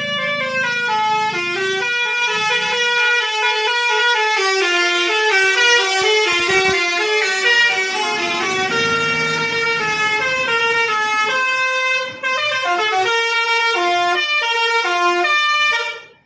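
A tour bus's 'telolet basuri' multi-tone musical horn plays a long tune, its notes stepping up and down with several pitches sounding together. The bus's engine rumbles underneath for the first couple of seconds, and the horn cuts off suddenly near the end.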